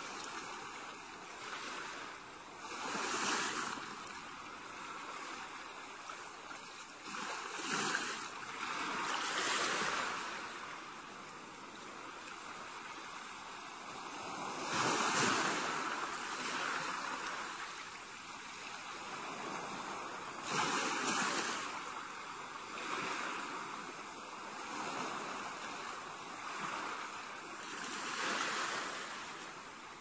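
Gentle beach waves breaking and washing up the shore, each wash swelling and fading every few seconds, with the loudest surges about halfway through.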